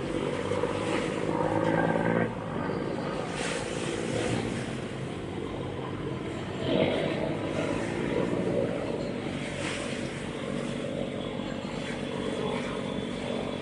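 Ferry's engine droning steadily while underway, over a hiss of wind and water rushing past. The engine note drops about two seconds in and picks up again about seven seconds in.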